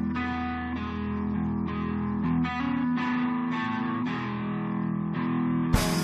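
Guitars playing a slow run of plucked notes, a new note about every half second, over a low bass note that holds for the first half and then stops. Near the end a sharp, bright hit comes in with the guitars.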